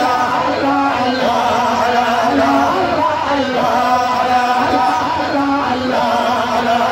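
A woman singing a devotional chant into a microphone, amplified through a sound system, holding long notes that slide from pitch to pitch.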